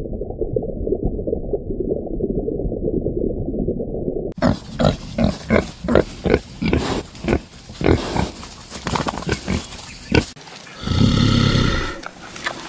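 Animal grunting in a quick series, about two short grunts a second, followed near the end by one longer, louder call. Before that, a muffled low rumbling sound that cuts off suddenly about four seconds in.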